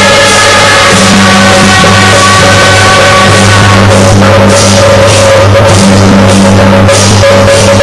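Loud music: a sustained melody over a steady low drone, with sharp percussion strikes coming in about four seconds in.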